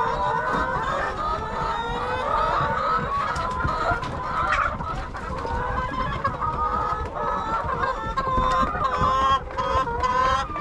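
A flock of laying hens clucking and calling, many voices overlapping without a break.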